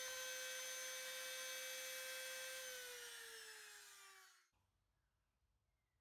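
Compact electric router motor running at speed with a steady high whine, then switched off: its pitch falls as it spins down, and the sound cuts off about four seconds in.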